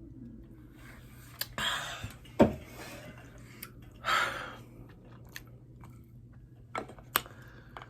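Close-miked eating of saucy hot wings: wet chewing and lip smacking in a few short bursts, with several sharp clicks in between.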